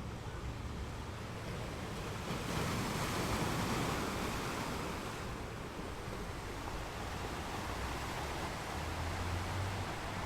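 Ocean waves breaking and washing up a beach, one wave swelling about two and a half seconds in and easing off by about five seconds, then a smaller wash.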